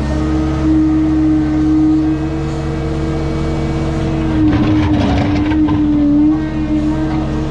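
Heavy-equipment diesel engine running steadily at high revs. About halfway through, its pitch sags briefly under load while clattering and scraping noise rises, then it recovers.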